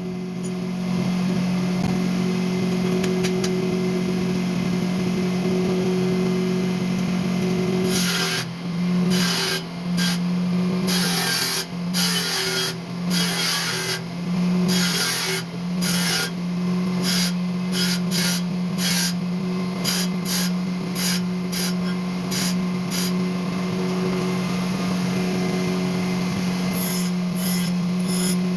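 A workshop machine's electric motor humming steadily, with short rasping strokes of metal being worked starting about eight seconds in and repeating irregularly, about one or two a second, as steel dental instrument pieces are ground or filed.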